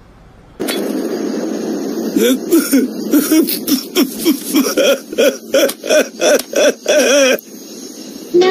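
A man sobbing loudly in short, rhythmic wailing gasps, about two a second, over a steady hiss; it stops a little before the end.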